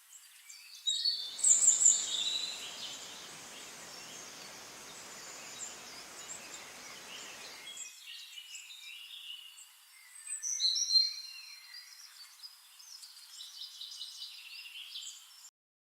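Several birds chirping and calling in short, high-pitched notes, with louder calls about a second and a half in and again around eleven seconds. A steady hiss of background noise runs under the first half, and the sound cuts off abruptly just before the end.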